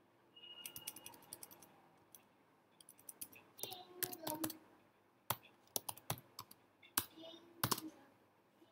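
Typing on a computer keyboard: runs of quick keystroke clicks, with short pauses between them, as text is deleted and retyped.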